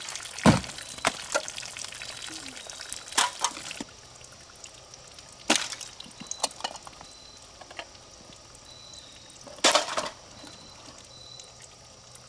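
Shot-through aluminium soda cans being lifted out of their box and handled, soda pouring and dripping from the holes, with a few sharp clinks and knocks as the cans hit each other and the table.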